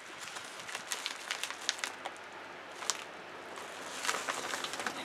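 Padded mailer envelope crinkling and tearing as it is pulled open by hand: a run of quick, irregular crackles and rustles.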